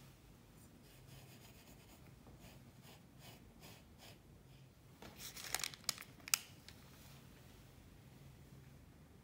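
Faint rustling of granulated sugar as a melon pan bun wrapped in cookie dough is handled in a glass bowl of sugar. About halfway through comes a short run of sharp, crisp scratches and clicks, the last one loudest.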